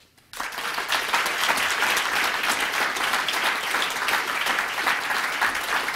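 Audience applauding: after a brief hush the clapping starts a moment in and quickly builds to steady, dense applause.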